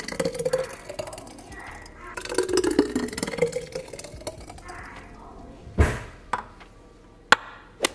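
Thick green smoothie poured from a blender jug into glass mason jars, in two pours, the pitch rising as the jar fills. Near the end come a thump and a few sharp clicks.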